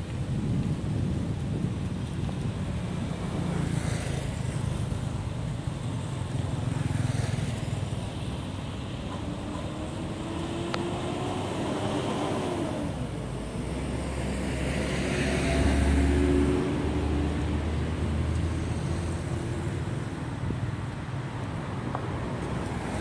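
Steady low outdoor rumble of wind and distant motor traffic. Around the middle a motor engine passes, its pitch gliding up and down, and the low rumble swells for a few seconds.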